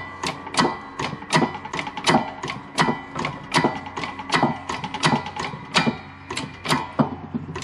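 A 6-tonne hydraulic shop press being hand-pumped, giving rapid clicks about three a second as a ball bearing is pressed into a motorcycle rear wheel hub, not yet bottomed out.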